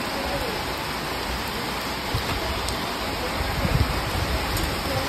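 Steady rain falling on pond water and a concrete bank, an even hiss, with a few low bumps in the second half.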